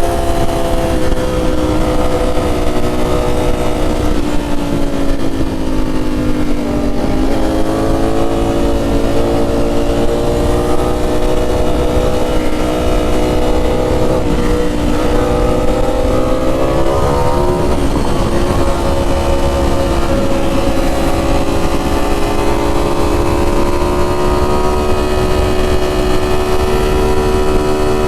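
Ducati Streetfighter V4S's 1103 cc V4 engine running through SC Project 2-1-2 titanium exhausts on the move, under a heavy low rush of wind noise. The engine note falls off a few seconds in, climbs again, dips briefly twice in the middle, then holds steady.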